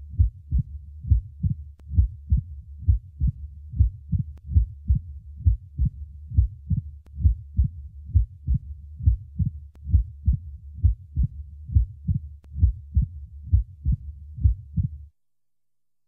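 Recorded heart sounds through a stethoscope: a regular, repeating run of short, low heartbeat sounds over a steady low hum, stopping shortly before the end. It is an unidentified test recording of one of these findings: a wide split S2, a normal split S1, an S3, a pansystolic murmur, an opening snap, a diastolic rumble, a summation gallop or an ejection click.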